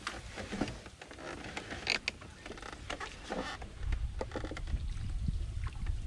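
Small rowboat being paddled along a channel: scattered knocks and creaks from the hull and paddle, with a low rumble building about four seconds in.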